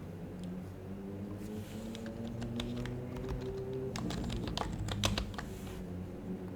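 Typing on an HHKB Professional HYBRID Type-S keyboard with silenced Topre switches: a run of quick keystrokes starting about a second and a half in, thickest around four to five seconds, then stopping near the end. Soft background music with held low notes plays underneath.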